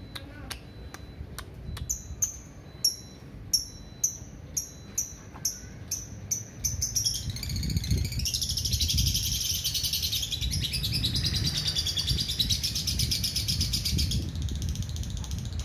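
Lovebird singing its long ngekek: a run of short, sharp chirps that come faster and faster, then a long, rapid rattling trill lasting about seven seconds that breaks off near the end.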